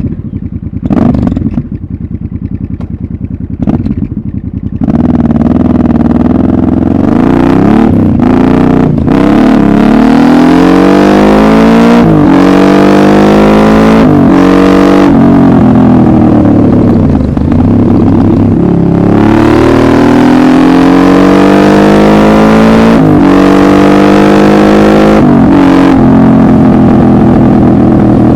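Honda Transalp 750's parallel-twin engine just fired up, idling with a couple of short throttle blips. It then pulls away hard, the exhaust note rising in pitch through each gear and dropping at each of several upshifts.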